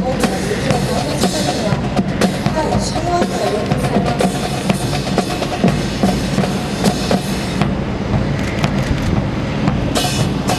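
Marching music with a steady drum beat, with sharp clacks scattered through it and several close together near the end.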